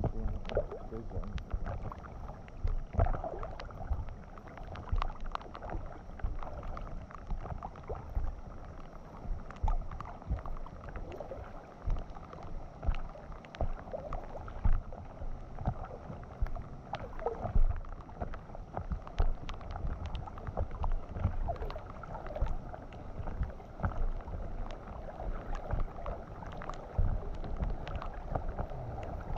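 Fast floodwater gurgling and splashing against an inflatable kayak's hull as it drifts downstream, with an uneven low rumble and many scattered sharp ticks of raindrops on the camera housing.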